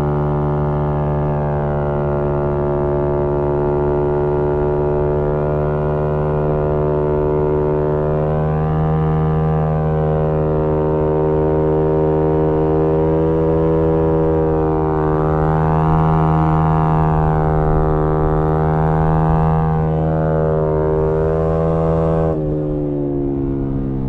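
Yamaha MT-125's single-cylinder 125 cc four-stroke engine through a GPR aftermarket exhaust, held at high revs at a nearly steady pitch with slight swells while riding. Near the end the pitch drops sharply and the note settles lower.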